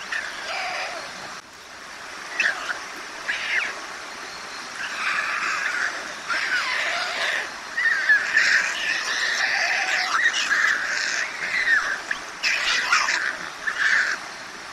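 Young white storks in the nest calling over and over with short, rising-and-falling begging calls while they pick up food. The calls are sparse at first and come thick and fast from a few seconds in.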